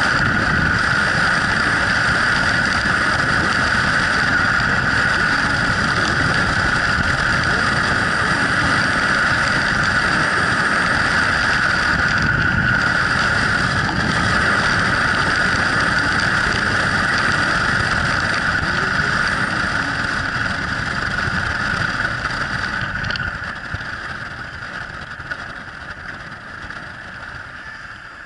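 Yamaha Drag Star 1100's air-cooled V-twin engine running under way, mixed with a steady rush of wind and road noise on the helmet-mounted microphone. The sound gradually fades over the last several seconds.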